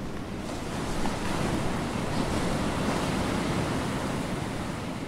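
Steady rushing noise of surf, even and without distinct events, under the closing card.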